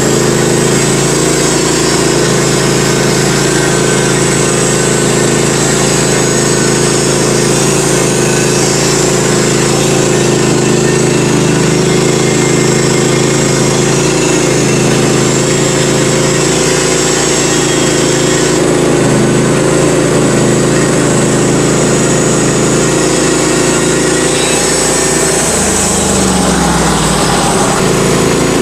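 Norwood HD38 portable band sawmill running steadily, its engine driving the band blade. About 25 seconds in, the engine pitch drops.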